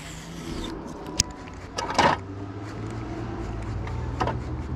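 Baitcasting reel being cranked to retrieve a topwater lure: a soft rubbing rasp over a steady low rumble, with a sharp click about a second in and brief scrapes around two and four seconds.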